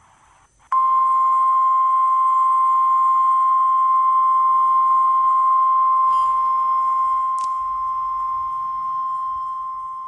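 Emergency alert attention signal, the single 1050 Hz warning alarm tone of NOAA Weather Radio. It is one long, steady, high beep that starts just under a second in, holds for about ten seconds and slowly fades near the end. It comes just before an emergency broadcast.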